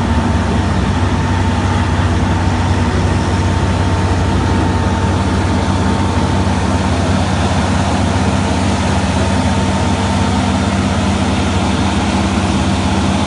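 Heavy engine running steadily at idle, a constant low hum with a fainter higher whine above it.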